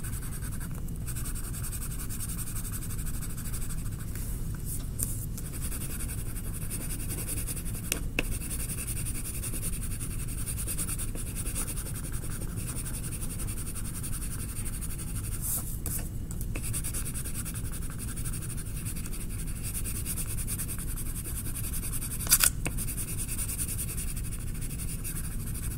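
Colored pencil scratching steadily on paper, shading a sky in with back-and-forth strokes. A brief knock sounds a few seconds before the end.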